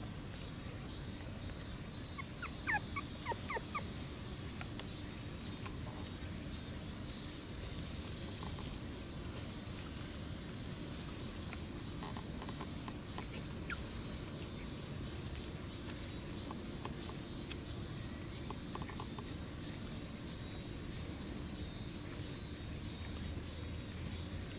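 Three-week-old Shiba Inu puppies giving a quick cluster of short, high squeaks about three seconds in, with faint scattered rustles as they move through the grass, over a steady high insect drone.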